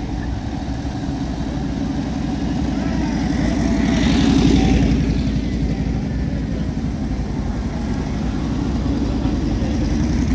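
Engines of WWII military vehicles in a convoy driving past, a steady low running note that swells as one vehicle passes closest about four to five seconds in and builds again near the end.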